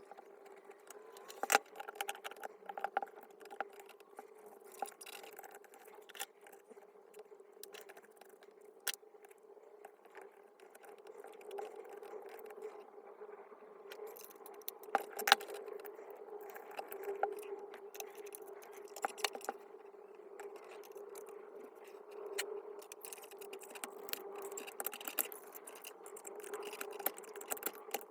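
Scattered clicks, clinks and scrapes of metal parts and hand tools being handled while a Makita JR3070CT reciprocating saw is taken apart, over a steady faint hum.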